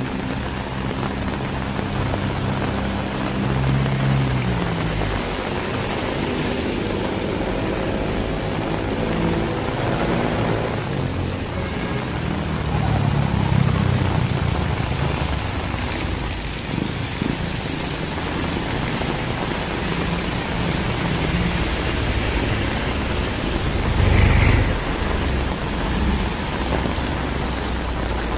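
Heavy rain falling steadily, with traffic passing: engine hum from vehicles going by in the first few seconds and again around ten seconds in, and a louder low rumble about 24 seconds in.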